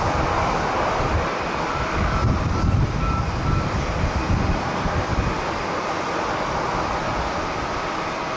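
Jet airliner engine noise, a steady rush, with strong wind gusting on the microphone.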